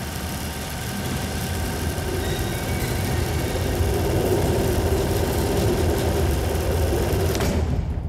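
A loud, steady rumbling roar, dense and engine-like, that starts abruptly; its hiss thins out near the end.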